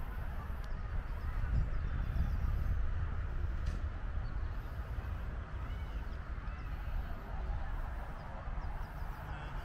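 Outdoor ambience: a steady low rumble with faint, indistinct chatter of distant voices.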